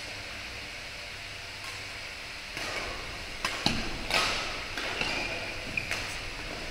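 Badminton rally: several sharp smacks of rackets hitting the shuttlecock, starting a little over halfway, with short squeaks of shoes on the court floor, over a steady hiss.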